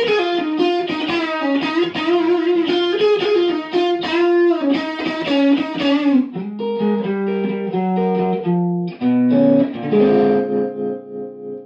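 Electric guitar played through a 2009 Fender Super-Sonic 60 tube amplifier, freshly repaired and rebiased: a blues lick of quick single notes with string bends, slowing into a few sustained notes and ending on a chord left to ring out.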